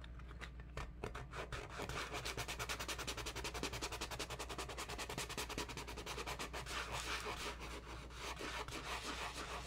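Sanding sponge scrubbing back and forth over the glazed, decoupaged face of a glass block in quick, even strokes, several a second, starting about a second in. It is sanding off excess dried coating.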